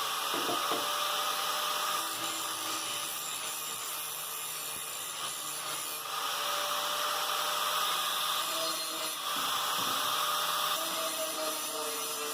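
A power tool grinding against the steel of a sickle-made knife blade: a steady, continuous grinding whine that shifts in pitch and pressure a few times as the tool is worked.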